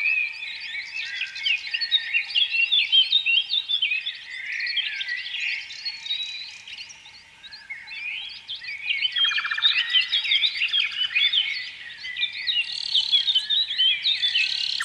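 Many small birds chirping and twittering together, a dense chorus of quick, high overlapping chirps. A fast buzzy trill joins about nine seconds in and again near the end.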